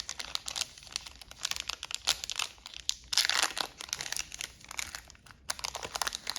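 A foil Yu-Gi-Oh booster pack wrapper being crinkled and torn open: a dense run of crackling and rustling with a few louder bursts.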